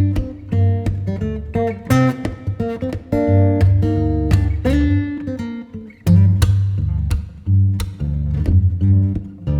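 Background music led by plucked and strummed acoustic guitar over a steady bass line.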